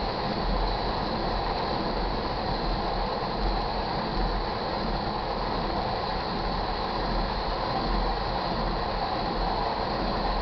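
Tank cars of a crude oil unit train rolling past. Their steel wheels rattle and clatter steadily on the rails.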